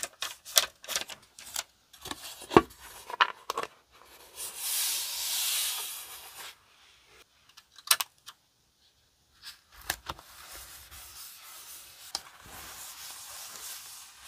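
Paper-crafting sounds. Sheets of translucent stickers and paper crinkle and rustle as they are handled, and a longer rasping slide follows about five seconds in. Near the middle, scissors snip through card a couple of times, and near the end hands rub paper flat against the page with a soft steady hiss.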